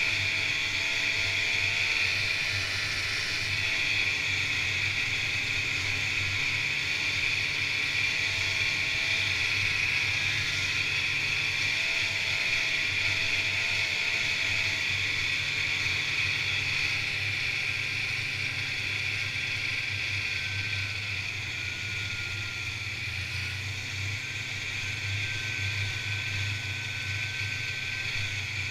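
Snowmobile engine running steadily at cruising speed, with a constant hiss over it. It is a little quieter for a few seconds past the middle.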